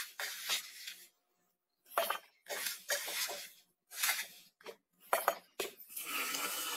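Dry uncooked rice scooped with a plastic measuring cup and poured into a metal pot: several short rattling rushes of grains, one after another. Near the end, tap water starts running steadily into the pot to wash the rice.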